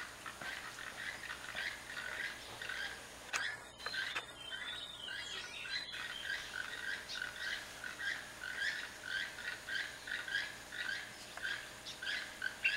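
Toucans calling: a steady run of short, frog-like croaking notes, about two to three a second.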